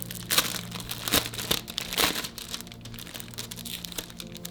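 Packaging crinkling and rustling in irregular bursts as a mouse pad is unwrapped and handled.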